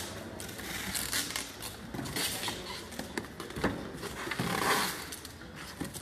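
Rustling and scraping handling noise with a few light knocks and clicks, in short bursts of hiss, strongest about two seconds in and again near the five-second mark.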